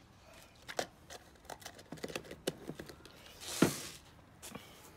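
Scattered light clicks and taps of handling the mixing bowl and utensils at the table, with one short rush of noise about three and a half seconds in.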